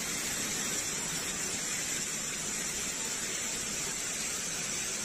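Steady rushing of flowing water from a rock-edged garden stream or pond, an even unbroken hiss.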